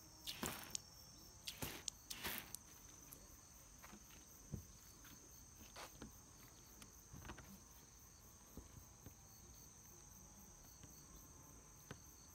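Faint rustling of a cloth shop towel wiped over wet car paint, twice in the first few seconds, over a steady high-pitched insect trill and a few light taps.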